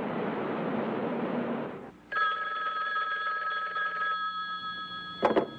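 Street traffic noise for about the first two seconds, then a desk telephone bell rings with a rapid trill for about two seconds, its tone lingering and fading. Near the end come a couple of sharp knocks as the handset is picked up.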